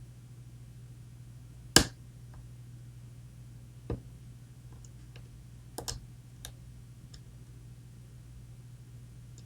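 Metal clicks of a pick and tension wrench working inside a Medeco camlock. One sharp click comes about two seconds in, then several lighter clicks and faint ticks as the pins are worked, over a steady low hum.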